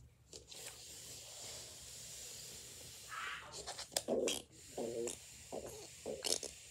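A child breathing close to the microphone, followed by several short wordless vocal sounds in the second half.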